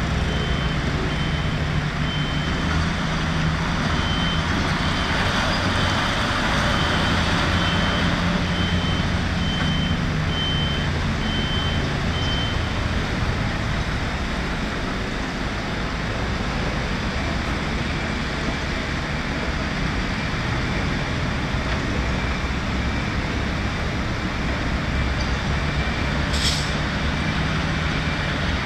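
Heavy diesel machinery running steadily, its engine note rising for a few seconds early on, while a reversing alarm beeps about once a second for the first dozen seconds. A short hiss of air comes near the end.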